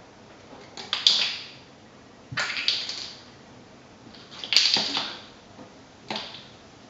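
A cat batting a small plastic sport bottle cap around a tiled bathroom floor: four short bursts of clicking and clattering, about a second and a half apart, each dying away quickly.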